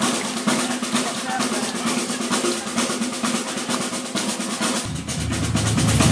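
A fast, dense run of sharp rattling strokes, like a drum roll, with a steady low rumble coming in about five seconds in.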